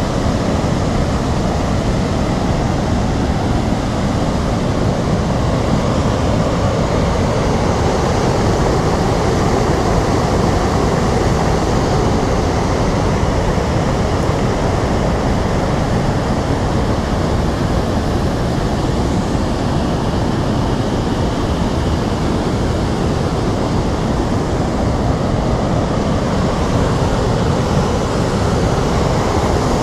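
Excess flood water being released over a dam's weir and churning in the river below: a loud, steady rush of water.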